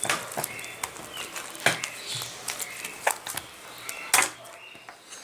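Clear slime being kneaded and squeezed by hand, giving irregular sharp clicks and pops, the loudest about a second and a half in and again near the end.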